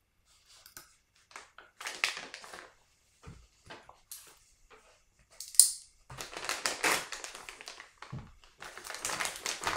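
Crinkling and rustling of a plastic kit parts bag being handled and opened, with one sharp snap a little past halfway and denser rustling after it.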